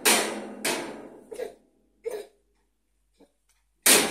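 A toddler banging a red object on a metal convector heater: sharp metallic knocks that ring on, two in the first second and another near the end, with a couple of lighter taps between.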